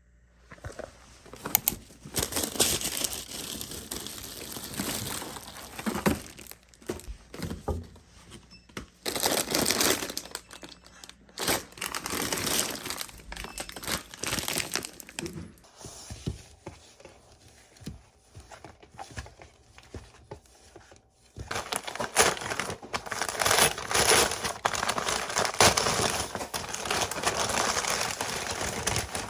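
Crinkling and rustling, as of plastic or paper being handled, in irregular bursts with short pauses and small clicks; it goes quieter for several seconds in the middle, then comes back more busily.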